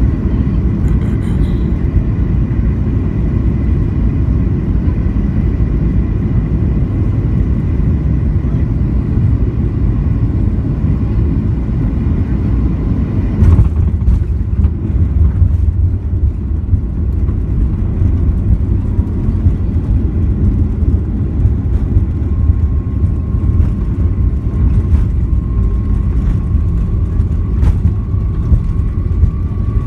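Cabin noise inside a Boeing 737-800 on final approach: a steady rumble of engines and airflow. About halfway through the main wheels touch down with a sharp thump, followed by a heavier runway rumble and scattered knocks and rattles as the jet rolls out. A faint whine rises slightly in the last several seconds.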